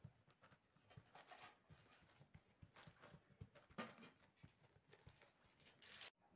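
Faint soft taps and slaps of fingertips patting and pressing pizza dough flat on a plastic-covered surface, several a second at an uneven rhythm, cutting off abruptly near the end.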